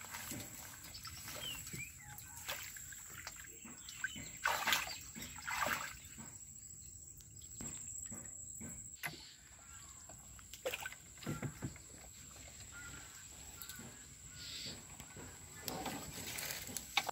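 Hands pulling wet water weed and sweeping through shallow floodwater beside a wooden boat: irregular splashes and wet rustling, the loudest two a little under five and six seconds in.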